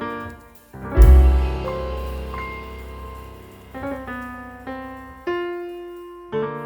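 Background piano music: slow, soft notes and chords, each fading away, with a deep bass chord about a second in.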